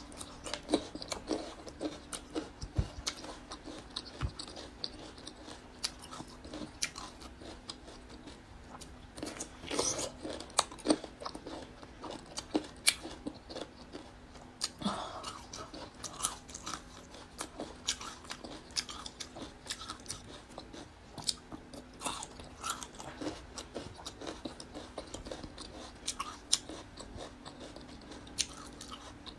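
Close-up biting and chewing of whole sweet-and-sour pickled single-clove garlic bulbs: irregular crisp crunches throughout, loudest around ten and fifteen seconds in.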